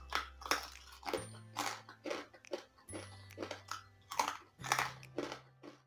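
Close crunching and chewing of crispy basreng (fried meatball chips), a sharp crunch coming about twice a second.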